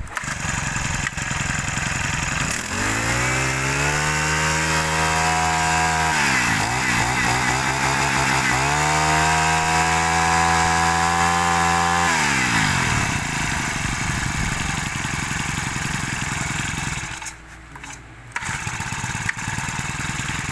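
Honda GX31 four-stroke brush-cutter engine running. It is revved up twice, each time held high for a few seconds, then falls back to idle. The sound dips briefly near the end.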